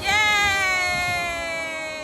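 A person's long, high-pitched "yaaay" cheer, held for about two seconds with the pitch slowly falling, then breaking off at the end.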